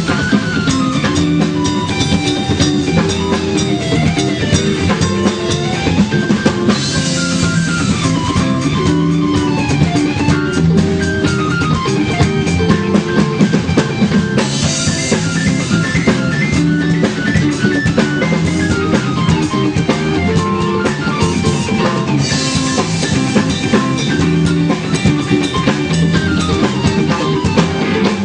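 Live rock band playing an instrumental passage on drum kit, guitar and keyboard, with no singing. Runs of notes step up and down in pitch over a steady drum beat, and a brighter, cymbal-heavy stretch comes about every seven or eight seconds.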